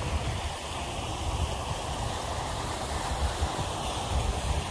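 Steady rush of splashing water from a park fountain's jets, with a low, uneven rumble underneath.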